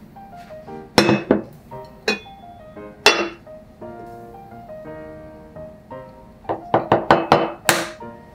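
Instrumental background music plays throughout. Over it, an enamel saucepan and its lid clink and knock on a countertop: sharp knocks about a second in and around two and three seconds in as the pot is set down and the lid lifted off and laid aside, then a quick run of light knocks and clinks near the end.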